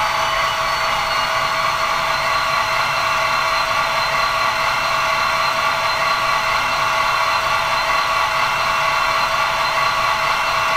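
The sound decoder in a Bachmann N-scale DD40 (Union Pacific DDA40X) model locomotive plays a twin-diesel idle through the model's tiny onboard speaker. It is a steady, thin hum with several held whining tones and little low rumble.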